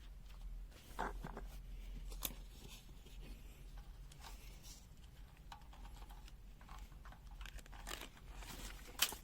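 Faint handling and rustling of a digital multimeter and its test leads, with a few sharp clicks, the loudest near the end.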